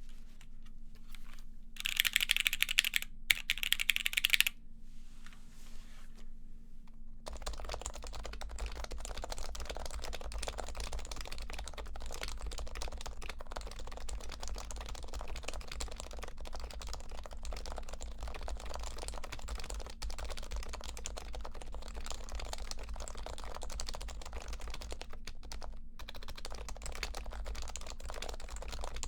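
Typing on a silenced HHKB Pro 3 Hybrid keyboard, its Topre switches fitted with silencing rings and with lightly lubed rails and stabilizers. A louder, brighter stretch of keystrokes comes about two seconds in, then steady continuous typing from about seven seconds on.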